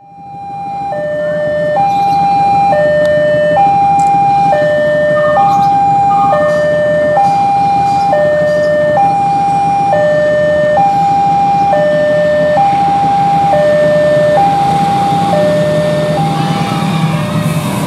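Railway level-crossing warning alarm sounding two alternating electronic tones, a higher and a lower one each held about a second, until shortly before the end. Under it runs the low running hum of an approaching diesel locomotive, whose rumble grows near the end as the train reaches the crossing.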